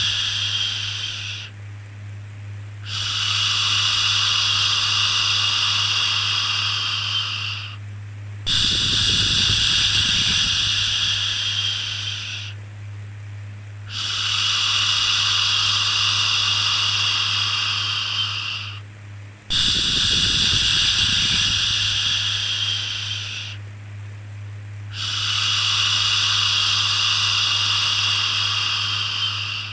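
A soothing shushing 'shhh' for a baby, repeated over and over: each hiss lasts about four seconds, with a short pause before the next. Under it runs a steady low hum.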